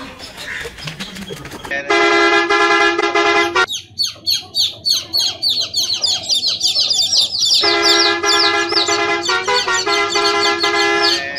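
A horn-like steady tone sounds three times, each blast held about two seconds, with a run of rapid high falling chirps, several a second, between the first and second blasts.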